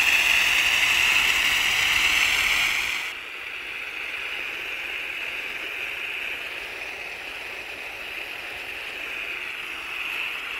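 Low-pressure soft-wash spray of soap-and-detergent cleaning solution hissing steadily against vinyl siding as it is applied to break down algae. It gets noticeably quieter about three seconds in and carries on evenly.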